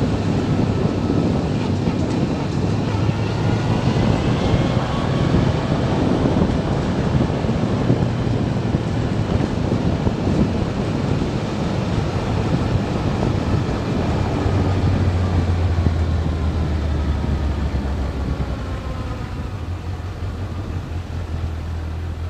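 Motorcycle running along a road, engine note with wind and road noise, the pitch shifting with the throttle. It gets quieter over the last few seconds.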